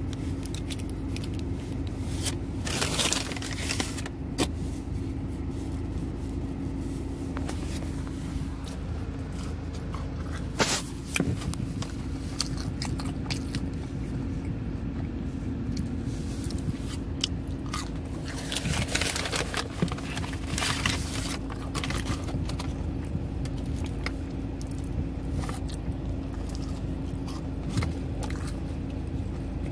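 Foil lid crinkling as it is peeled back from a plastic dipping-sauce cup, with a second spell of crinkling later on and food being dipped and bitten, over a steady low hum inside a car.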